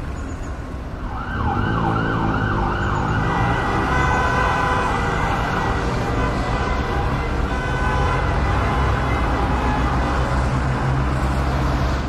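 Heavy road traffic rumbling, with an emergency-vehicle siren cycling rapidly up and down over it from about a second in.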